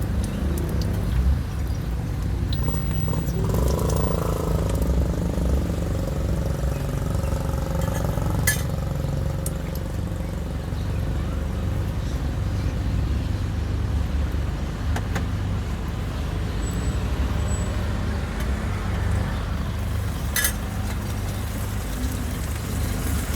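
A steady low rumble of motor-vehicle engines, like traffic running close by, with two sharp clicks, about a third of the way in and near the end.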